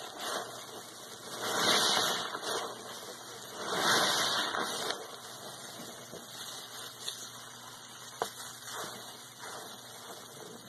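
Sponge soaked in sudsy cleaning solution being squeezed: two loud, wet gushing squeezes about two seconds apart, then quieter squishing of the suds, with a single sharp click later on.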